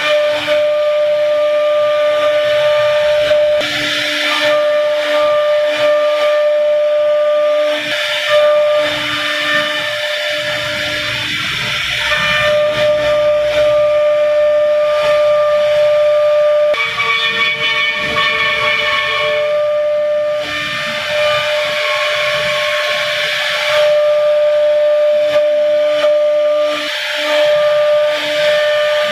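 CNC router spindle whining steadily as its bit carves grooves into a wooden panel, with the hiss of the cut swelling and fading as the bit moves through the wood. A little past halfway the whine drops slightly in pitch for about three seconds.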